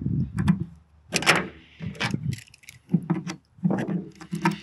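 Screwdriver and pliers clinking and scraping against the steel yoke of a PTO shaft's universal joint, with several sharp metal clicks spaced irregularly, as the joint is worked back together by hand.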